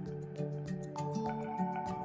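Background music: a mellow instrumental track with sustained pitched notes over a steady, regular beat.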